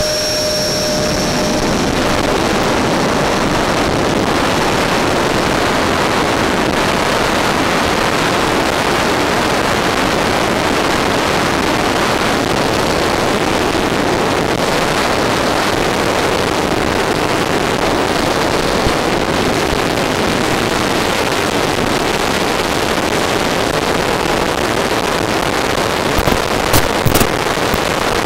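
Onboard sound of an RC model airplane's motor at takeoff power and in the climb. A steady whine for about the first two seconds gives way to a loud, even rush of motor and air noise on the onboard microphone, with a few short crackles near the end.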